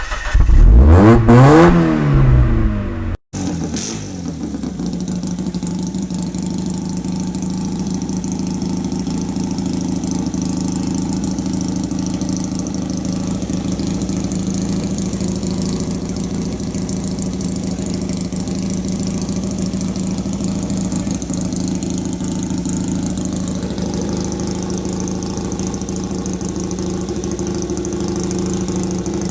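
1968 Fiat 500 Corsa race car's engine, extremely loud, revved hard with the pitch sweeping up and down for about three seconds; after an abrupt cut it settles into a steady idle for the rest.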